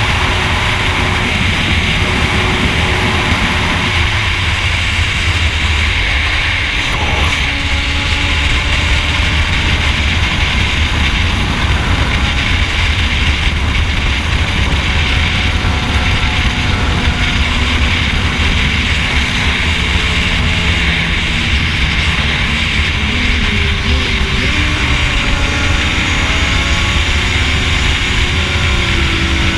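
A sport motorcycle at steady highway cruising speed: constant wind rush buffeting the bike-mounted microphone, with the engine's drone underneath, its pitch drifting only slightly.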